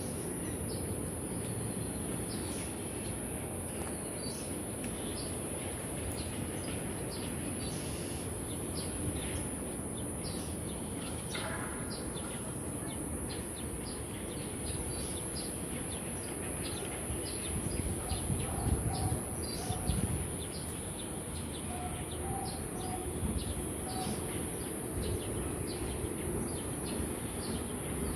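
Wild birds chirping in many short calls over a steady high-pitched hiss. A low rumble comes in briefly about two-thirds of the way through.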